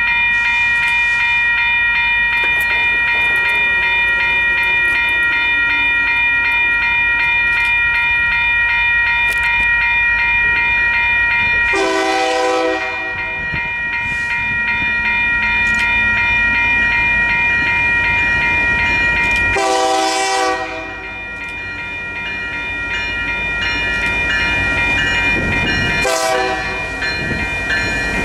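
Union Pacific diesel locomotive's multi-chime air horn sounding long, steady blasts, broken by short gaps about 12 and 20 seconds in and again near the end. Under it the rumble of the approaching freight train grows as the locomotives arrive near the end.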